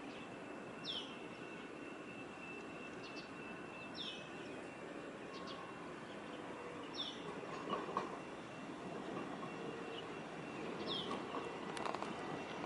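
Steady outdoor ambient noise with a thin, steady high whine, and a bird giving a short downward-sliding call four times, a few seconds apart.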